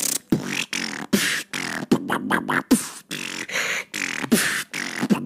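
Beatboxing: a fast rhythm of mouth-made drum hits and hissing bursts, used as the beat for a transition challenge.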